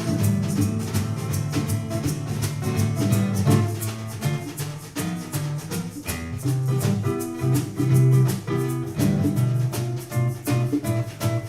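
Live jazz combo playing an instrumental break with no singing: guitar over shaker and drums keeping a steady beat.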